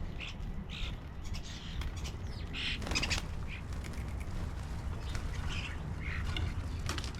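Wild birds calling: a scatter of short, harsh calls, the loudest about three seconds in, over a steady low rumble.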